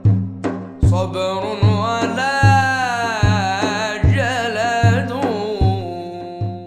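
A young male voice chanting an Islamic supplication (ibtihal), drawing out long wavering melodic runs, over a low drum struck steadily about once every 0.8 seconds.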